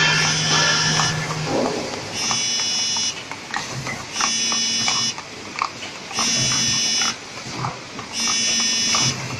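Automatic cup-filling and packing machine running in its cycle: a buzzing tone sounds in bursts of about a second, roughly every two seconds, five times, with short clicks and clatter between the bursts. A steady low hum runs under it and stops about a second and a half in.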